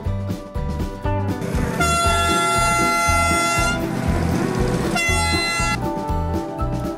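A miniature train's horn or whistle blows a long steady blast, then a breathy hiss, then a shorter blast, over background music with a steady beat.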